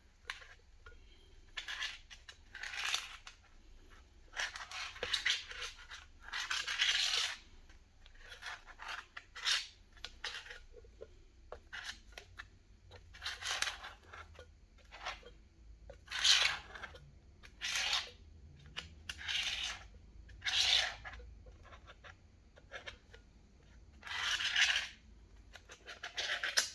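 Pen tracing around a tool's outline on shadow foam: a long run of short scratching strokes at irregular spacing.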